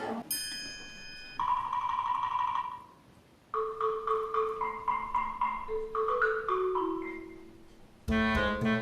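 Short music cue of bell-like mallet percussion: a high chime, a held note, then a short tinkling melody of about a dozen notes, before fuller background music comes back in near the end.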